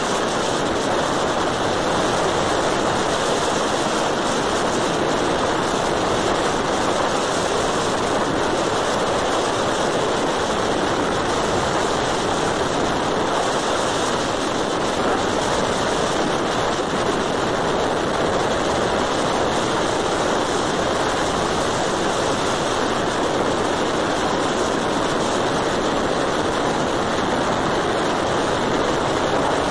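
A steady, even rush of wind and tyre noise from travelling along a paved road.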